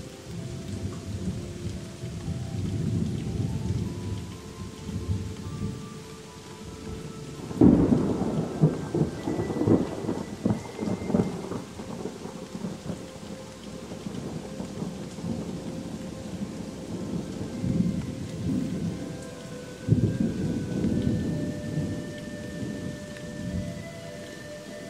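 Thunderstorm: steady rain with rolling thunder. A sharp crack of thunder about seven seconds in rumbles on for several seconds, and a second crack comes about twenty seconds in.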